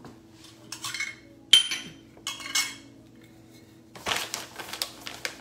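Kitchen utensils clinking and bag rustling while flaxseed meal is measured out with a measuring cup. There is one sharp clink with a short ring about one and a half seconds in, and a longer stretch of rustling and scooping near the end.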